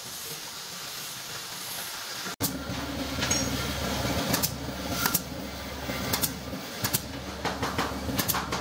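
Cordless drill running steadily as it works into wood at the foot of an upright strip, starting a couple of seconds in, with sharp ticks about once a second over its hum.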